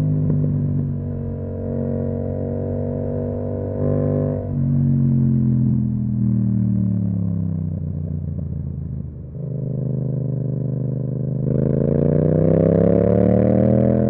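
Yamaha MT-07's parallel-twin engine running through an Akrapovic exhaust while riding. The note holds steady, gives a short blip about four seconds in, drops in pitch as the bike slows, then rises again as it accelerates near the end.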